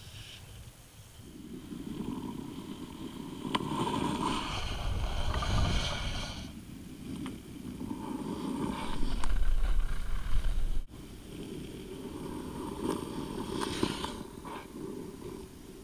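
Wind buffeting a microphone sitting low on the ice, in rising and falling gusts, mixed with the scrape of ice-skate blades across the ice as the kitewing skater sails past; a few sharp ticks stand out.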